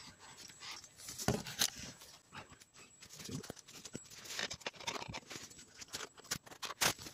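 Handling noise from hands and tools working on parts in a car's engine bay: scattered clicks, knocks and rustles, with the sharpest knocks about a second and a half in and again near the end.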